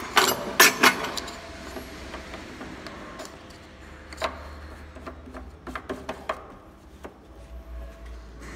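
Clicks and knocks of a white plastic threaded nut and stainless-steel parts handled by hand as the nut is fitted and screwed onto a shaft of a food encrusting machine: a quick run of sharp clicks in the first second, then scattered single taps.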